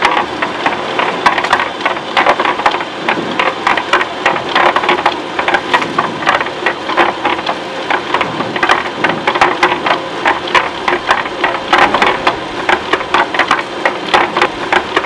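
Machinery running with a steady hum under dense, irregular rattling and clattering.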